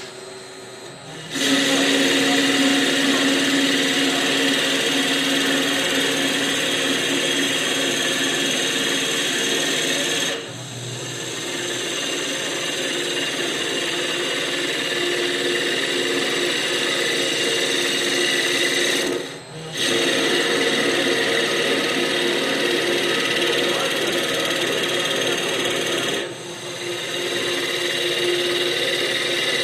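Vertical CNC wood lathe cutting a spinning wooden blank: a steady machine whine with the rasping hiss of the cutter shaving wood. It starts about a second in and dips briefly three times.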